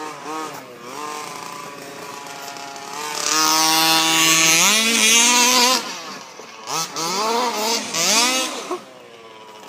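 Small two-stroke engine of a gas-powered RC Baja buggy, revved up and down. It climbs to a long, loud high-rev run for a few seconds, then rises and falls again as the throttle is worked.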